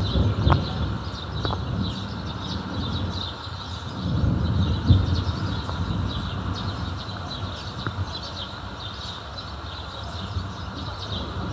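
Distant thunder rumbling low: one roll fading at the start and another swelling about four seconds in. Small birds chirp throughout.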